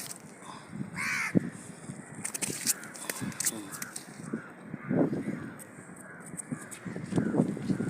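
Birds calling: a run of short, repeated calls about a third to half a second apart. Louder low bumps come in about five and seven seconds in.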